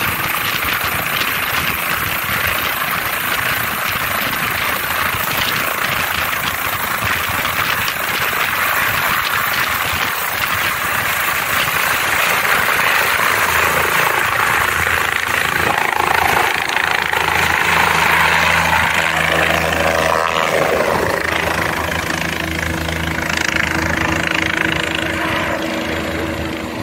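Nepal Army helicopter's turbine and rotor running loud and steady at takeoff power as it lifts off the slope and climbs away.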